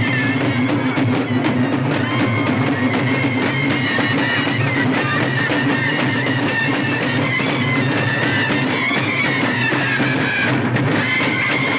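Aare vadya: Karnataka folk frame drums beaten in a dense, unbroken rhythm, with a reed wind instrument holding a wavering, nasal melody over them.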